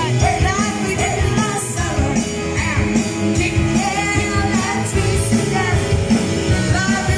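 A live band playing upbeat rock music with a singer.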